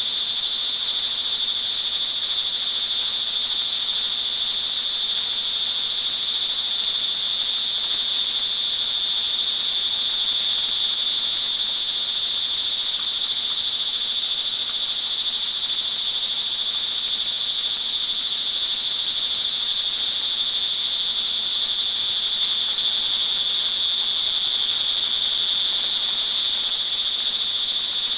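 A chorus of crickets chirring continuously, a steady high-pitched trill that never breaks or changes.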